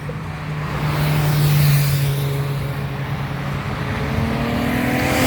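Car engine passing by at moderate speed, holding a steady note, then rising in pitch as it speeds up near the end.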